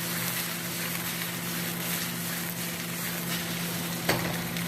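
Sliced peppers and onions sizzling steadily as they fry in a wok, with a steady low hum underneath and a single knock about four seconds in.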